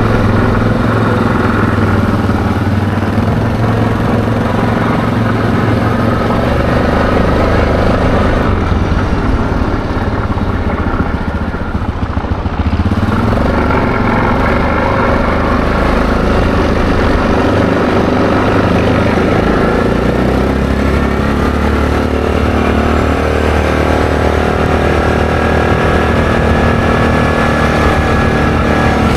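ATV engine running under way, a steady loud drone that eases off briefly near the middle and then pulls again.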